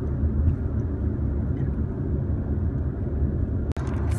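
Steady low rumble of a car heard from inside the cabin, from the engine and the car's running, with a brief dropout near the end.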